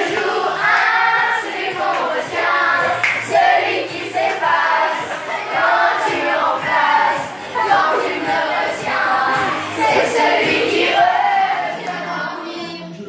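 Children singing a song in French karaoke-style, several voices together, with music behind them.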